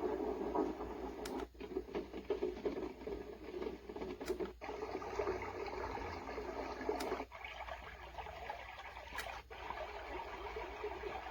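Sleep sound machine playing its noise and nature sounds through its small speaker, switching to a different sound every two to three seconds, each switch marked by a short click.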